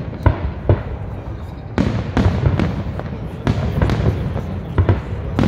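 Aerial fireworks shells bursting in quick succession: about ten sharp bangs in five seconds, each trailing off in a short echo, over a continuous low rumble.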